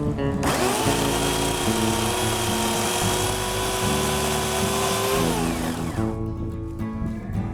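Homelite electric chainsaw spinning up about half a second in, running with a steady high whine, then winding down before the end. Background music plays throughout.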